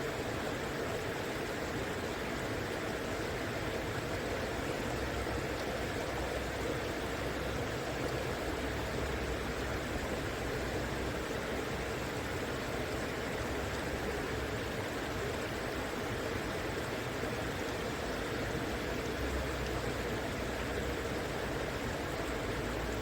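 River water flowing, a steady unbroken rush with no changes.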